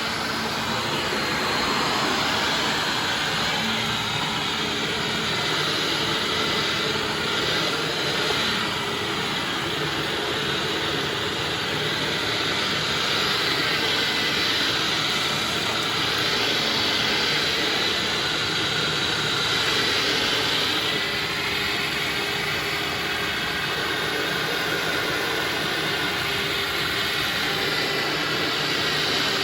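Hoover WindTunnel Ultra upright vacuum cleaner's motor running steadily with a loud whooshing airflow, its pitch wavering slightly in places. The owner puts the unsteadiness down to the motor's carbon brushes sticking in their holders and losing contact.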